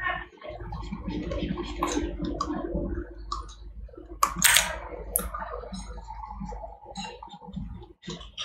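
Clicks and small handling noises from a computer mouse and keyboard while a 3D model is being sculpted, with a few sharper clicks about four and five seconds in, over a low steady hum.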